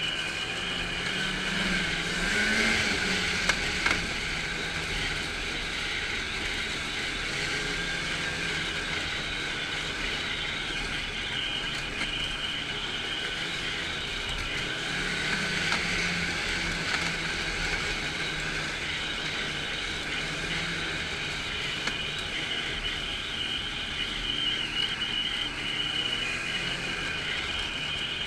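Snowmobile engine running steadily under way, heard from the rider's seat, swelling a little about two seconds in and again around fifteen seconds. Two short sharp clicks about three and a half seconds in.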